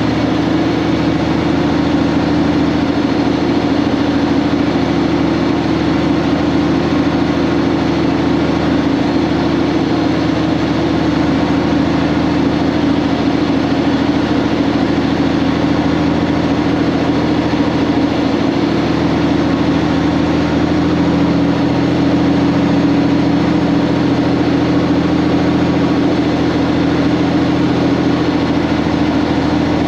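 Semi truck's heavy diesel engine running steadily, with a low, even hum that shifts slightly in pitch about two-thirds of the way through.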